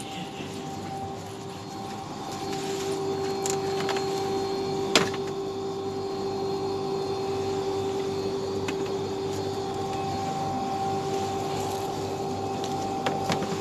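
Steady machine hum with a constant pitched drone, like a running air-conditioning or refrigeration unit. Over it come light knocks and rattles of plastic crates being handled, with one sharp knock about five seconds in.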